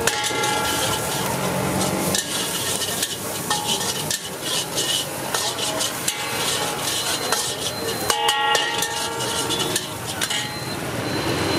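Steel ladle scraping and knocking against a wok as vegetables are stir-fried over a high gas flame, with constant sizzling. Ringing metal clangs come at the start and again about eight seconds in.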